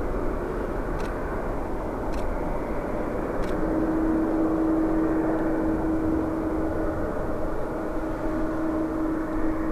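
Boeing 777-300ER's GE90 turbofan engines running: a steady jet rush with a held droning tone that comes in about a third of the way through.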